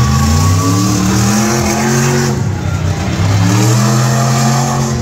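Monster truck engine revving hard under throttle. The pitch climbs for about two seconds, falls away briefly as the throttle comes off, then climbs again and holds high.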